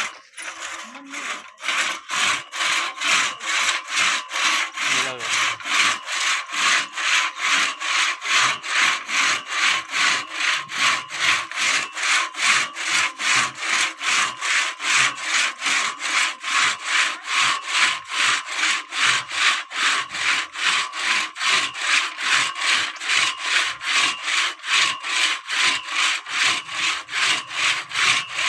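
A two-man crosscut saw is pulled back and forth through a tree trunk, rasping through the wood in a steady rhythm of about two to three strokes a second. The sawing settles into this rhythm about two seconds in.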